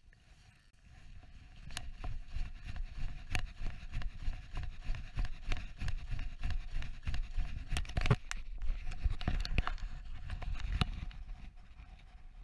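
Handling noise from a hand-held action camera, with rubbing and knocking on its housing, mixed with crunching footsteps on snow as it is carried. It starts about a second and a half in and goes on as many irregular thumps and clicks.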